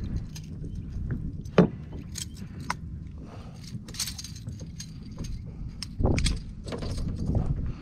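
Small metallic clicks and clinks of fishing pliers against a lure's hooks as a bass is unhooked in a landing net, over a low rumble of handling. A louder knock comes about one and a half seconds in, and a louder patch of handling about six seconds in.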